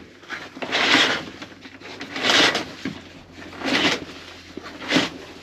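Motorhome cab curtain being pulled open along its track: four rustling, swishing pulls in a row, the last one short.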